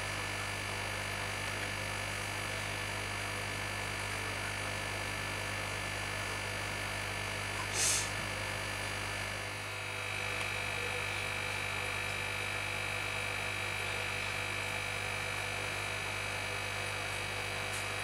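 Steady low hum from aquarium equipment, with a short hiss about eight seconds in. About ten seconds in, a faint steady high whine joins the hum.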